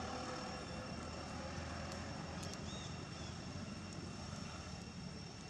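Steady low drone of distant engine noise under even outdoor background hiss, with a faint high steady whine and a few small clicks and short chirps.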